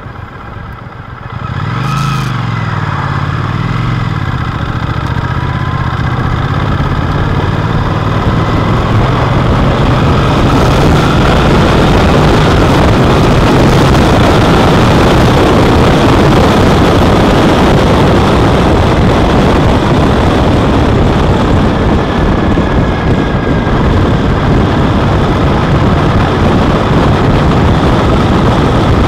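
Triumph Speedmaster's parallel-twin engine pulling away hard about a second and a half in, its note climbing and dropping back twice as it shifts up. It then accelerates more slowly and cruises at speed under a steady rush of wind and road noise.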